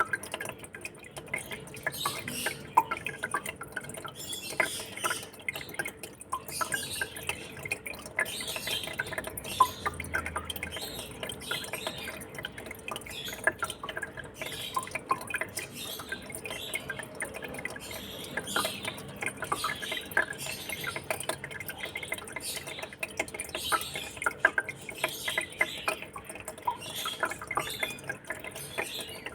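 Water trickling and dripping in a fish tank: a continuous, irregular patter of small splashes.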